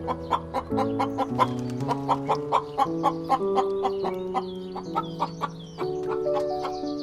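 Chickens clucking in short, quick calls, several a second, over background music with held notes.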